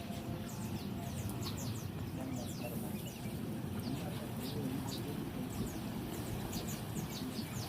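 Small birds chirping, many short high downward-sweeping chirps in quick scattered runs, over a low steady background murmur with indistinct voices.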